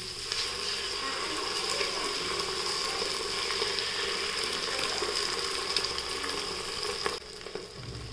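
Vegetables (peas, spinach, tomato) sizzling in butter in a steel cooker pot as beaten egg is poured over them for an omelette. The sizzle drops quieter about seven seconds in.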